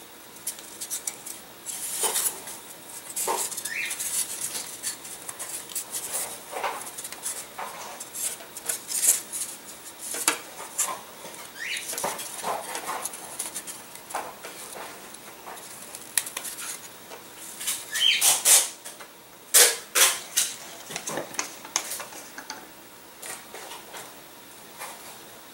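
Light clicks, taps and rustling as thin laser-cut wooden fuselage parts are handled and pressed together on a paper-covered table. The sharpest clicks come about three quarters of the way through.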